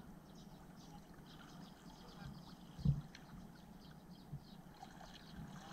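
Shallow water stirring as a person wades and handles a mesh net trap, with one dull knock about three seconds in. Faint high chirping runs throughout.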